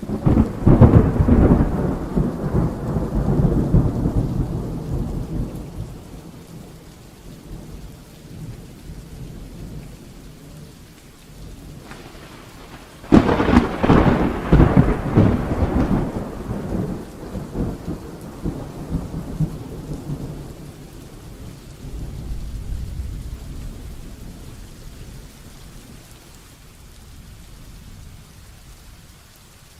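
Heavy rain falling steadily through a thunderstorm, with two loud claps of thunder, one at the very start and one a little before halfway, each crackling and rumbling away over several seconds. A fainter roll of thunder follows later.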